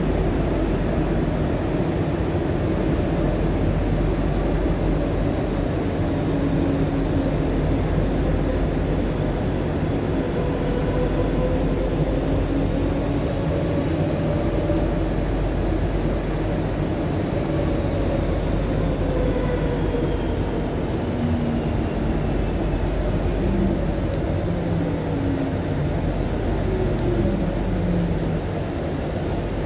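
Madrid Metro 3400-series train heard from inside the car, running through a tunnel: a steady rumble of wheels on rail with electric traction-motor tones. Over the last third the tones fall in pitch as the train slows for the station.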